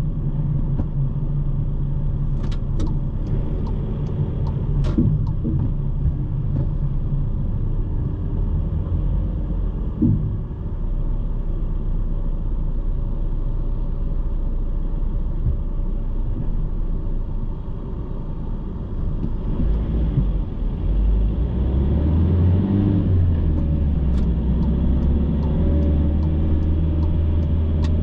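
Car driving in city traffic, heard from inside the cabin: steady engine and road rumble, which becomes louder and deeper in the last third. A run of light, evenly spaced ticks comes near the end.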